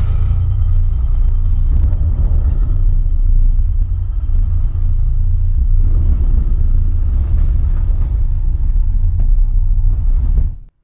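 Loud, deep film-soundtrack rumble played through a Funk Audio LFE24 Ultra subwoofer, heard in the room, with the woofer cone working hard. It stops abruptly just before the end.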